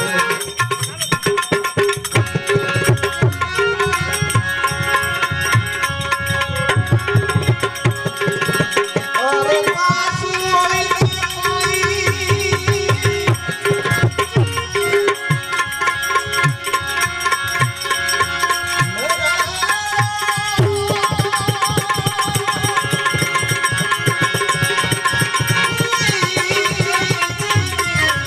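Instrumental interlude of a Gujarati bhajan: tabla keeping a steady rhythm under a melodic instrument playing the tune.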